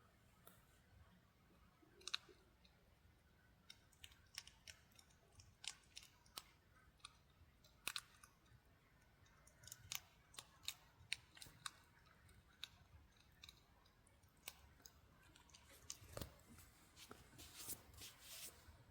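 A hedgehog chewing dry cat biscuits: irregular sharp crunches, coming thicker in a quick run near the end.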